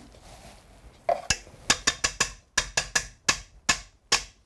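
A kitchen utensil tapped about a dozen times against the rim of a frying pan to knock coconut oil off it. The sharp clicks come a little under four a second, start about a second in, and each rings briefly.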